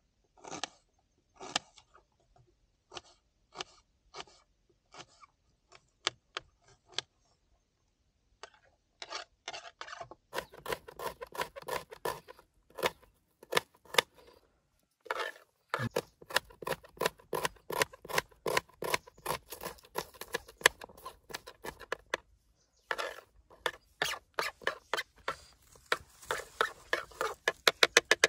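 Kitchen knife chopping onion on a plastic cutting board: separate cuts about one or two a second at first, a short pause, then quick, steady chopping from about ten seconds in.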